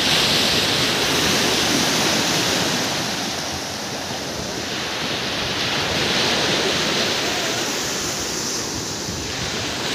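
Surf washing onto the sand at the water's edge, mixed with wind on the microphone; the wash swells about a second in and again past the middle.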